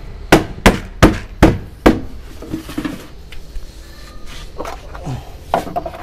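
Five sharp knocks in the first two seconds, about two-fifths of a second apart: a hand pressing and tapping a plastic lid shut on a cat-food container. Lighter clicks and clatter follow.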